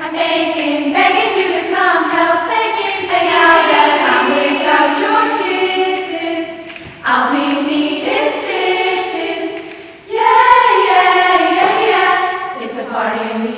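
Girls' school choir singing a cappella, in sustained phrases, with new phrases coming in strongly about seven and ten seconds in.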